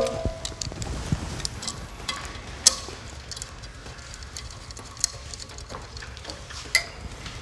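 Handling clicks and metallic knocks as a Cold Steel Finn Wolf folding knife is fitted and clamped into a metal impact-test fixture: a handful of sharp clicks, the loudest about two and a half seconds in, over a low steady hum.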